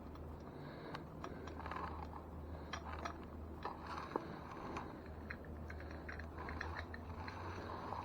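Scattered light clicks, taps and scrapes of hands working on an e-bike's front wheel and its hardware, over a low steady hum.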